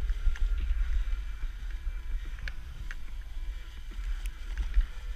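Snowboard gliding over groomed snow: a steady low rumble of the board on the snow and wind on the camera's microphone, with scattered small ticks.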